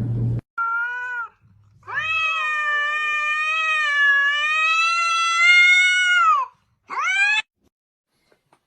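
A domestic cat meowing three times: a short meow, then a long drawn-out yowl lasting about four and a half seconds with a slightly wavering pitch, then a short rising meow.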